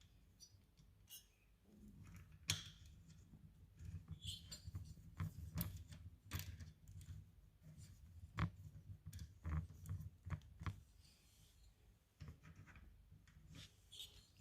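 Scattered small metallic clicks and taps as a nut is worked by hand onto the bolt of a motorcycle shift linkage, with faint handling noise.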